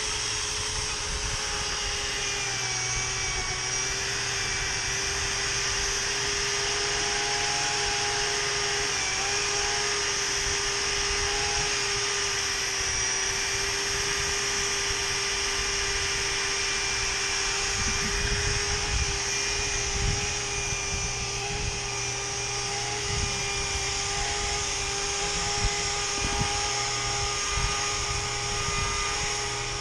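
Cordless rotary polisher running steadily at a constant pitch while buffing stains out of window glass.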